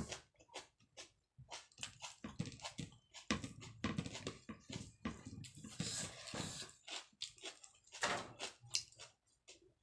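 Close-up eating sounds: many short wet smacks and clicks of chewing, with fingers mixing rice and greens on a plate and a longer rustling smear about six seconds in.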